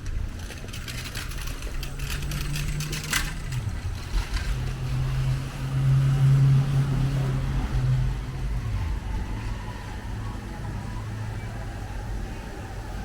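A motor vehicle's engine running close by with a low steady hum that shifts pitch a few times and is loudest about six seconds in. There are scattered clicks in the first three seconds.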